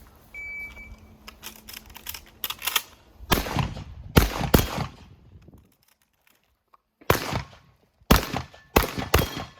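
Beretta 1301 Comp Pro semi-automatic 12-gauge shotgun firing a string of shots at an irregular pace, in singles and quick pairs, about seven loud reports, with fainter cracks in the first couple of seconds.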